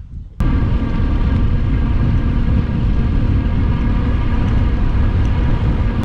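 A motor engine running steadily with a heavy low rumble. It cuts in abruptly about half a second in.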